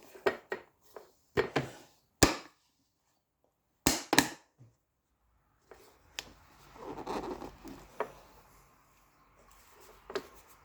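Hard dishes and lids being handled: a run of sharp knocks and clacks as they are picked up and set down, with a short stretch of rubbing about two-thirds of the way through.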